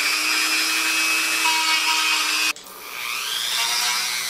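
Corded handheld rotary tool running at high speed, grinding a small hole into a small project box. It stops suddenly about two and a half seconds in, then restarts with a rising whine as it spins back up.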